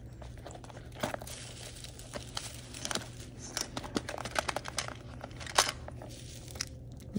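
Woven raffia straw bag being handled: crinkling and rustling with scattered small clicks and knocks as items are pushed inside and the magnetic flap is pressed shut.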